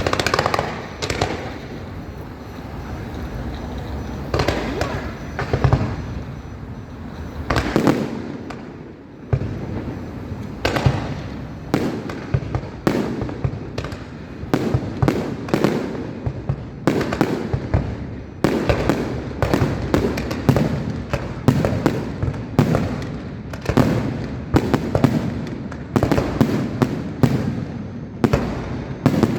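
Fireworks display: aerial shells bursting one after another, each a sharp crack or boom with a rumbling echo, sparse at first and then coming in quick succession through the second half.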